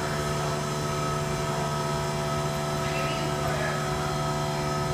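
Steady machine hum made up of several constant tones, with faint voices in the background.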